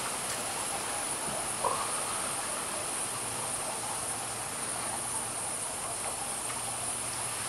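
Steady high-pitched insect chorus, with one short louder sound about a second and a half in.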